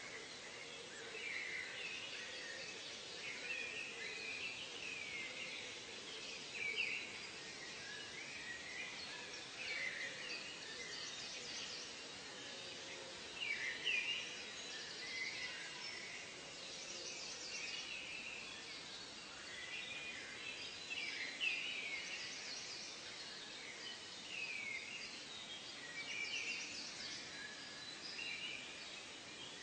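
Several birds calling at once over a steady outdoor hiss: short rising and falling chirps and quick high trills overlap, coming and going every second or two.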